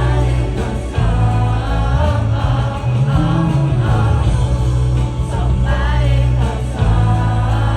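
Live concert music over an arena sound system: a heavy bass beat with singing over it.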